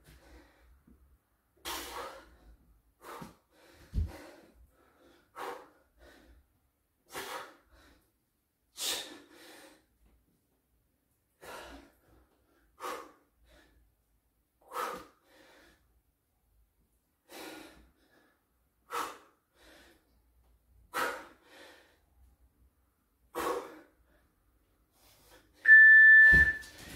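Heavy breathing during push-ups, a short hard exhale about every two seconds, with a low thump about four seconds in. Near the end a loud, steady interval-timer beep sounds for under a second, marking the end of the work set.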